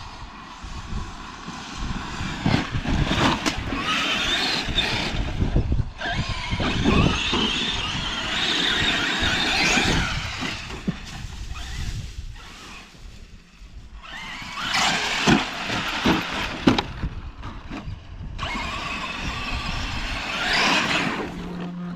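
A small vehicle driven over dirt, its motor revving up and down in repeated surges, with knocks and rattles from rough ground.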